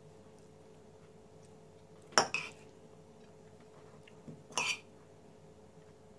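Metal cutlery clinking twice against a porcelain plate while scooping crumbled cheese filling, the two clinks about two and a half seconds apart.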